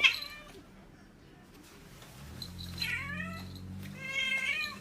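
A cat meowing: a short meow right at the start, then two longer, drawn-out meows in the second half.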